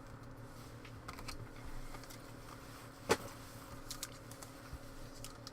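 Trading cards being handled and shuffled: faint scattered taps and rustles of card edges, with one sharper click about three seconds in, over a steady low hum.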